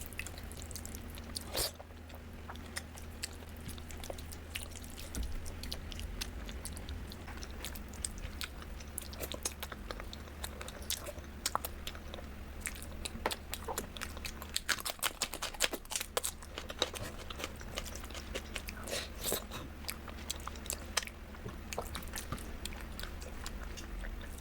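A person chewing and biting crunchy food close to the microphone, with many irregular crisp crunches that come thickest in the middle of the stretch, over a steady low hum.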